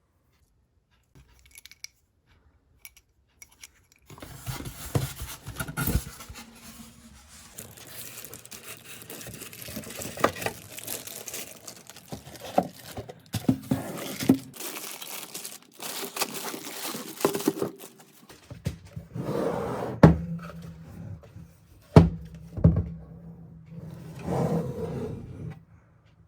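Packaging being opened by hand: cardboard and packing material torn, crinkled and scraped, with scattered knocks and two sharp thunks in the last third as something solid is handled or set down. It starts about four seconds in.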